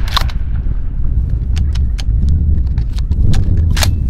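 Scattered sharp snaps and clicks, with a louder crack near the end, over a steady low rumble, moments after a shotgun shot at a turkey.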